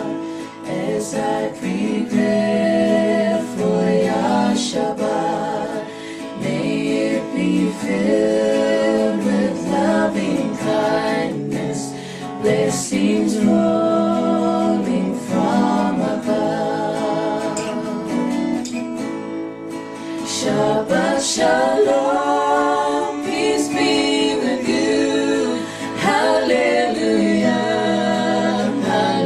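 Music: a singing voice with guitar accompaniment.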